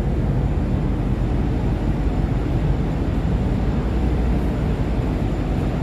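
Steady low rumbling noise on the deck of a large container ship, with no rhythm or clear strikes.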